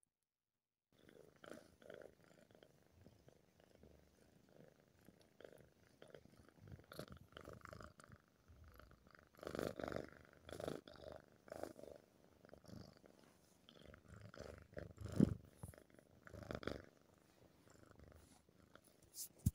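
Tabby cat purring in repeated waves as its head and ears are stroked, starting about a second in. One brief louder knock about three-quarters of the way through.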